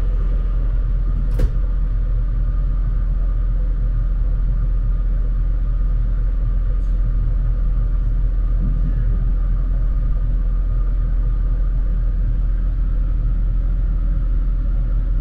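Steady low rumble of a EuroCity passenger train running along the line, heard from inside the coach as its wheels roll on the rails, with one sharp click about a second and a half in.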